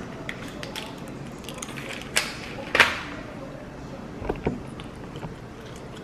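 A chewing gum pack being handled and opened: small plastic and foil crinkles and clicks, with two louder sharp crackles about two seconds in, half a second apart, and a few softer clicks a little after four seconds.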